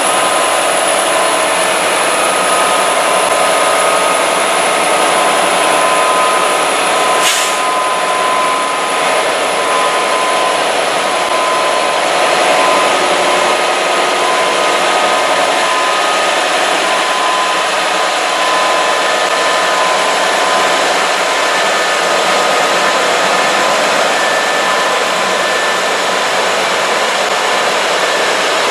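A lash-up of CN diesel freight locomotives rolling past close by: a loud, steady mix of engine and wheel noise with a few steady high tones over it. A single sharp click about seven seconds in.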